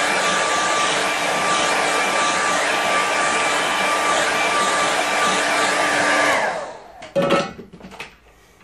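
Handheld hair dryer blowing hot air on a wet watercolour painting to dry it: a steady rush of air with a motor whine. It is switched off about six seconds in and spins down, and a short loud knock follows about a second later.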